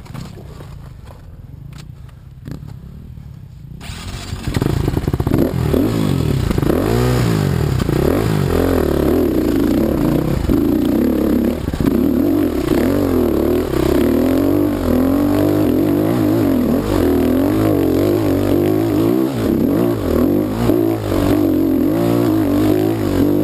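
Dirt bike engine running low for a few seconds, then revving hard about four seconds in and staying loud, its pitch rising and falling over and over as the throttle is worked under load on a steep, rocky climb.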